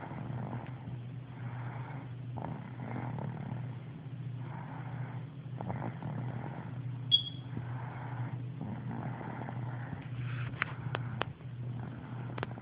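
Rhythmic snoring over a steady low drone, with a hoarse breath about every one and a half seconds. A short, loud, high beep sounds about seven seconds in, and a few sharp clicks come near the end.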